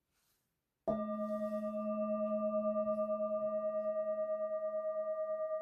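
A singing bowl struck once, about a second in, ringing on as a sustained tone with several overtones and a gently wavering, pulsing level.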